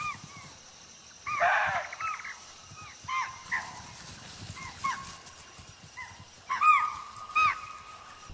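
Deer giving repeated short, sharp alarm calls, some in quick pairs, loudest about six and a half to seven and a half seconds in: the alarm deer raise when a tiger is moving nearby.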